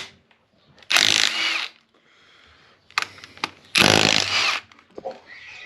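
Two short runs of a power tool, each lasting under a second, about a second in and again about four seconds in, with a quieter hiss between them.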